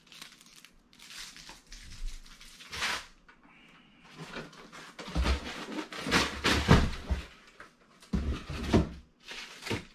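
A boxed set of glass storage bowls and its packaging being handled: an irregular series of knocks, clunks and rustles as the pieces are taken out and looked over for breakage.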